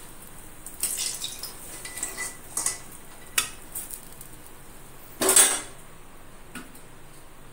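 Metal spatula clinking and knocking against a steel plate and a metal kadai while fried eggplant pieces are lifted onto the plate: a few short clicks, then one louder clatter about five seconds in.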